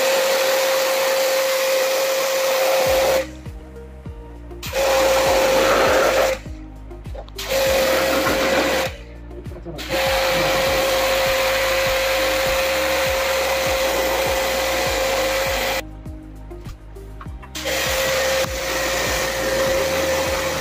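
Portable electric pressure washer spraying water onto a split AC's indoor coil: a loud hissing spray with a steady motor whine, switched on and off in about five bursts of one to six seconds as the gun's trigger is pulled and released. Background music with a steady beat comes in about three seconds in.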